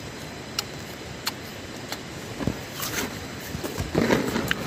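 Someone chewing a mouthful of crisp nashpati (Asian pear), with a few short, sharp crunches.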